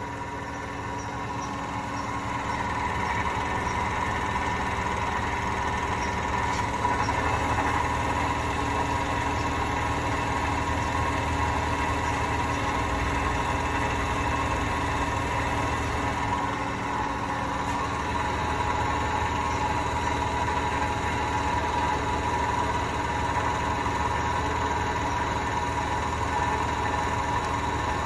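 Hotpoint washing machine's drum spinning with a steady drone and a whine over it, building up over the first few seconds and then holding level: the noise of worn drum bearings.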